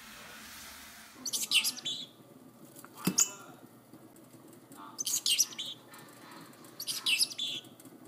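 Parrotlet chirping in three short bursts of high chirps, with a single sharp click about three seconds in.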